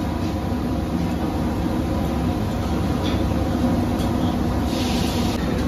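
Steady low rumble of a busy street-food area's background noise, with a brief hiss about five seconds in.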